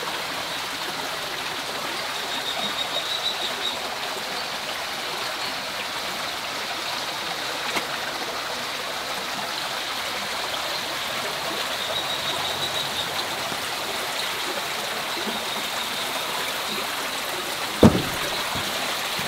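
Steady rushing of a stream, with a single low thump near the end.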